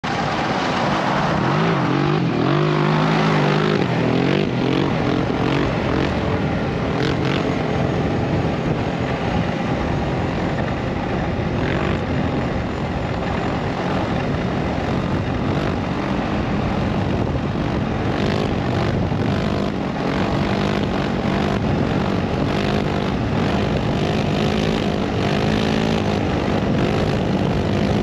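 A motor vehicle's engine running continuously, its pitch rising and falling.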